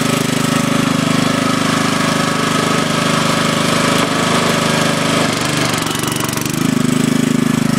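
Log splitter's small engine running steadily, dipping briefly in level a little over five seconds in.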